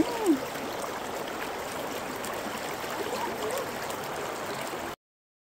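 Shallow, rocky mountain creek rushing over and between boulders, a steady even water noise that cuts off suddenly near the end. A short sliding vocal sound is heard at the very start.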